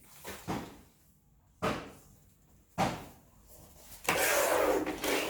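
Hardware and boxes being set down on a table with a few sharp knocks, then a steady rustling of packaging being handled and cleared away from about four seconds in.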